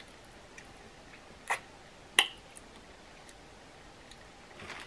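Quiet room tone broken by two short, sharp clicks, one about a second and a half in and a louder one under a second later, with a few fainter ticks.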